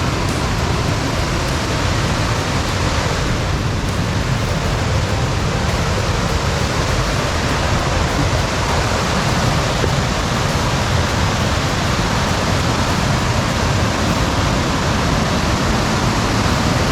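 Steady rush of creek water pouring over a series of small cascades, swollen by rain: a loud, even noise that does not let up.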